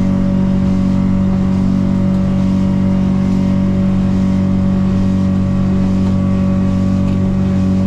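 Yamaha F150 four-stroke outboard running steadily at about 5,700 RPM near wide-open throttle, the boat doing about 42 mph. It is heard from inside the boat's enclosed cabin, a constant drone that holds one pitch.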